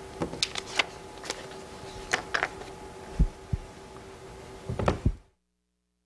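Scattered clicks and light knocks from objects being handled on a news desk, over a steady electrical hum, with two low thumps about three seconds in. A cluster of clicks comes just after five seconds, then the sound cuts off abruptly to dead silence.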